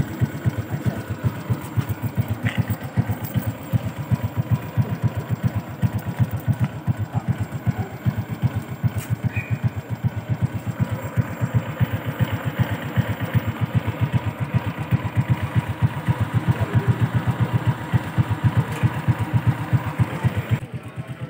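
Small engine idling steadily, with a rapid, even firing rhythm.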